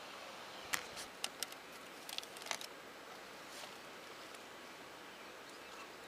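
A few short, light clicks and rustles of movement through garden shrubs, bunched in the first half, over a faint steady outdoor background.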